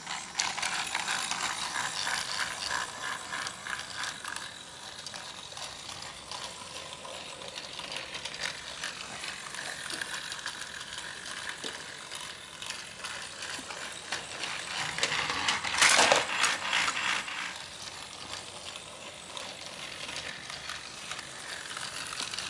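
Motorised TrackMaster Thomas toy engine running on plastic track: a steady rattling whir of its small motor and gears. It clatters louder for a couple of seconds about two-thirds of the way through.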